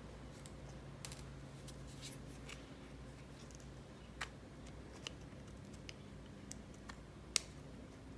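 Hands handling the plastic gearbox housing and gears of a Traxxas EZ-Start starter: scattered faint clicks and taps, the sharpest about seven seconds in.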